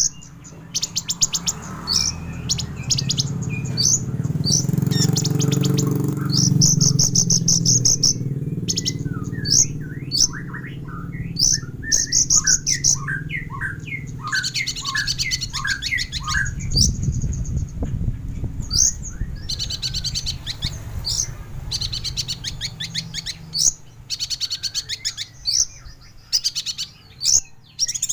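Olive-backed sunbird (kolibri ninja) singing a full, varied song of sharp high trills and quick chip notes, with a run of short falling notes in the middle, over a low steady background noise.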